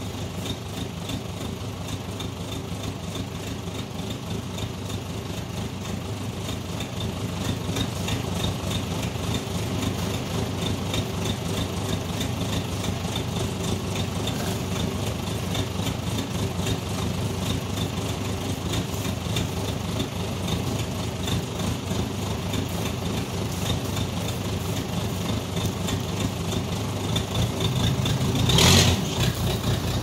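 Case 580C backhoe engine running steadily and growing louder as the machine approaches, with a brief louder surge near the end.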